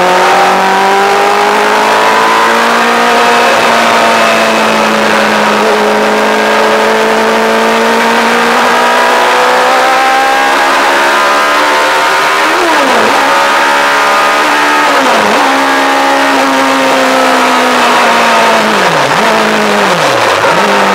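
Yamaha R1 inline-four motorcycle engine in a lightweight track car, running hard at high revs with the pitch climbing slowly through the first half. In the second half the note drops sharply and comes back up several times as the driver lifts and changes gear.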